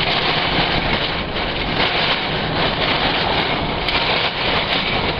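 Violent storm wind blowing steadily: a loud, even rush with no breaks, which the person filming takes for a tornado passing over.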